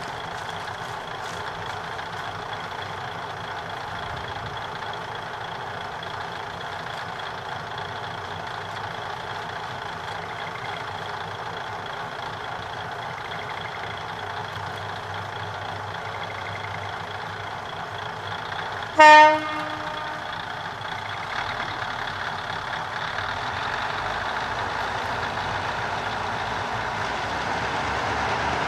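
Kominato Railway KiHa 200 diesel railcar standing at the station with its engine running, giving one short horn blast about two-thirds of the way through. After the horn its engine sound rises as the railcar pulls away.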